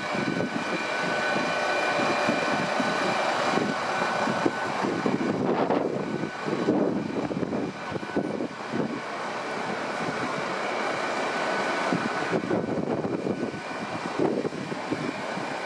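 Hitachi Class 800 bi-mode train's underfloor diesel generator units and cooling fans running, a steady hum with a high whine on top.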